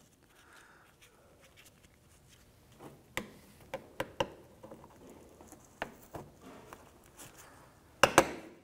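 Plastic push-in retainer clips being pressed into a plastic fender splash shield by gloved hands: scattered light clicks and taps, with a louder cluster of snapping clicks near the end.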